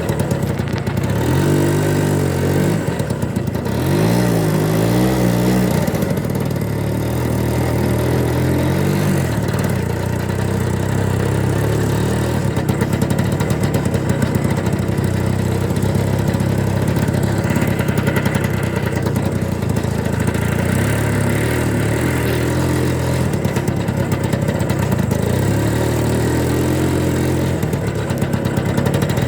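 Engine of a homemade Muravei-scooter tricycle running under way, steady for most of the time, with its pitch rising and falling as it revs about one to six seconds in and again over the last third.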